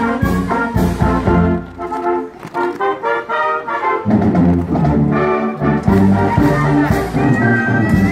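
High school marching band playing as it marches, brass carrying the tune over regular drum hits. The low drums drop out for a couple of seconds in the middle, then come back in.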